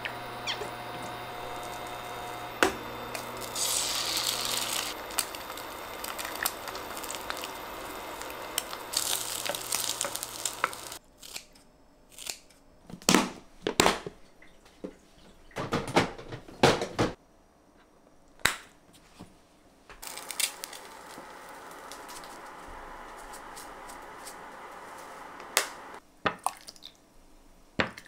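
Frying pan on an induction hob: a sharp crack about two and a half seconds in, then a louder sizzle as food fries in the hot oil. Around the middle, clicks, knocks and rustling as a plastic kimchi container's snap-lid clips are opened and the contents handled. Then another steady sizzle from the stove, and a few clinks of a ladle and bowl near the end.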